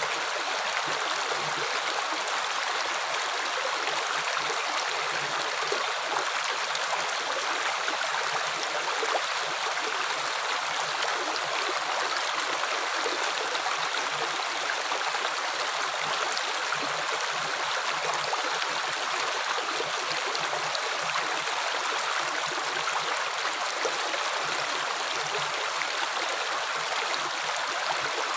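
Running water flowing steadily in an even, unbroken rush.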